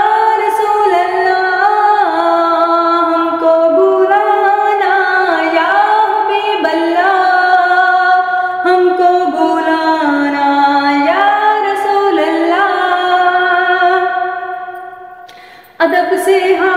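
A woman singing a naat in long, drawn-out held notes that slide from pitch to pitch, without clear words. The voice fades away about fourteen seconds in and comes back strongly near the end.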